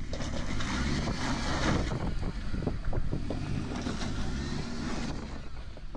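Land Rover Defender 110's engine running hard under load as it struggles for traction on an icy, stony lane, with scattered clicks of tyres on loose stone and wind on the microphone. The engine sound eases off near the end.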